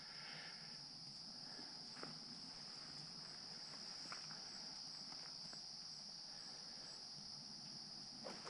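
Faint, steady high-pitched chorus of insects trilling without a break, with a few faint ticks about two and four seconds in.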